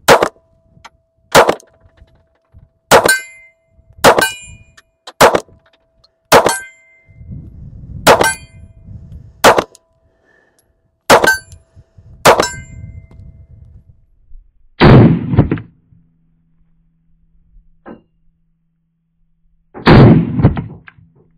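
Ten shots from a Smith & Wesson Bodyguard 2.0 .380 pistol, fired about one every second or so until the 10-round magazine is empty. Each shot carries a short metallic ring of steel targets being hit. Later come two loud rushes of noise, each under a second long.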